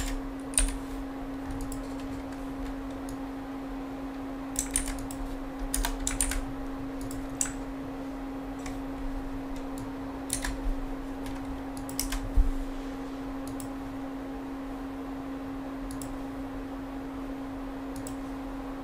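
Typing on a computer keyboard in short bursts of key clatter, thinning out to a few single clicks in the second half, over a steady low electrical hum.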